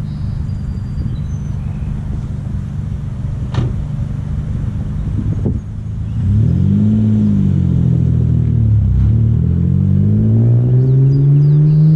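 Mitsubishi Eclipse's swapped 3.8-litre 6G75 V6, running through Road Race Engineering headers, a custom Y-pipe and an Invidia exhaust, idles steadily, then about six seconds in pulls away under throttle. The revs rise, drop back at a gear change and climb again, with a slight rasp. Two sharp clicks come shortly before it pulls away.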